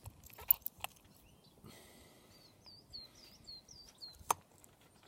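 A few sharp clicks, the loudest about four seconds in, from the watch being handled. Behind them a small bird chirps a quick run of about six short notes.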